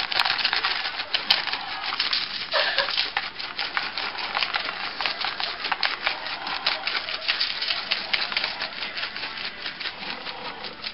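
Dry barbecue rub being sprinkled over a rack of baby back ribs on aluminium foil: a fast, dense patter of grains and small clicks that keeps going.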